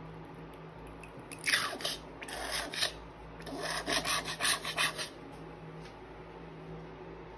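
A white plastic spoon scraping and stirring orange slime against the bottom and sides of a plastic tub, in two spells of quick scraping strokes between about one and five seconds in.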